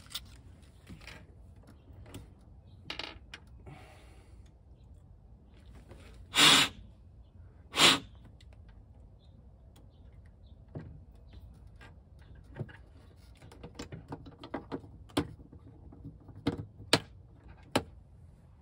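Hands handling the plastic inner taillight housing and small bulbs, making scattered small clicks and taps. Two much louder sharp clacks come about six and a half and eight seconds in.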